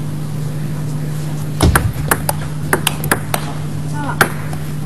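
Table tennis rally: the celluloid ball clicks off the bats and the table in quick succession, a few hits a second, with a dull thump about one and a half seconds in.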